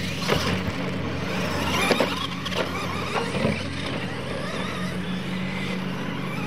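Radio-controlled monster trucks racing on dirt, their motors whining and gliding up and down in pitch. Several sharp knocks come in the first half as the trucks hit the ramps, over a steady low hum.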